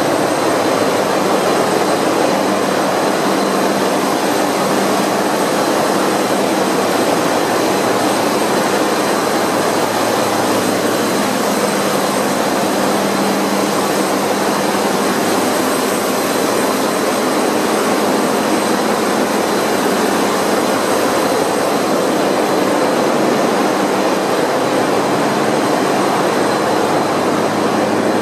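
A ship's diesel generator engines running in the engine room: a loud, steady mechanical din with a few constant tones over it.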